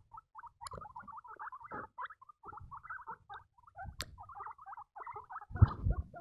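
Baby guinea pigs squeaking in a fast, unbroken string of short, high peeps. Low thumps and rubbing of fur against the microphone run under it, loudest just before the end.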